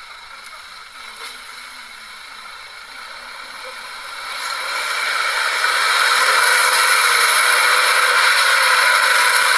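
Light truck's engine working hard under load as it drives through deep mud. It grows louder from about four seconds in, then holds steady.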